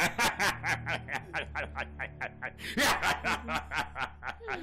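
A cartoon shark character laughing: a long run of short, quick chuckles, about five a second.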